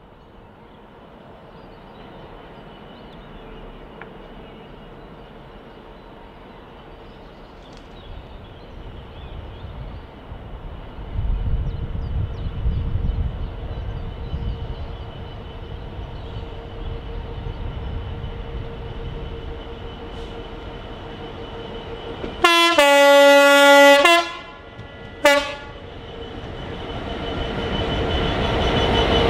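Class 66 diesel locomotive, with its two-stroke V12, approaching at the head of a train of covered hopper wagons, its engine rumble growing louder. About two-thirds in, the horn sounds one long blast and then a short one, and the wagons roll past with rising wheel noise.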